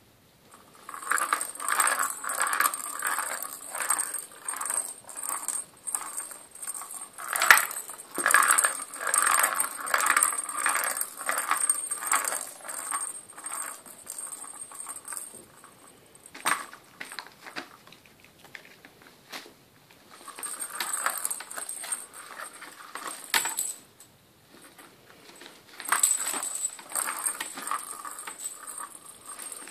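A kitten playing on a cat scratcher toy with a plastic ball track: irregular bursts of scratching and rattling with some jingling, broken by quieter pauses in the middle and again shortly after.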